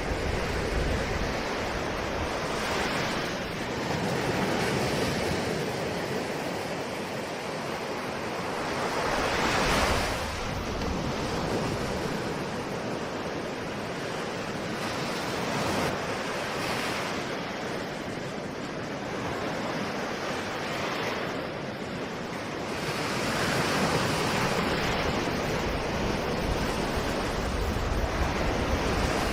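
Ocean surf: waves breaking and washing ashore in a continuous rush that swells and subsides every few seconds.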